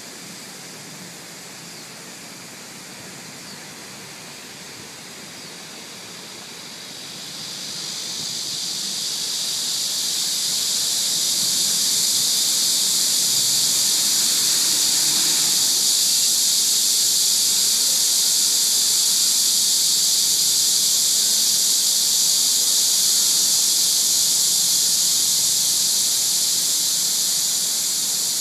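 Cicadas buzzing in summer: a steady, high-pitched drone that swells up from a fainter hiss about seven seconds in, then holds at full strength.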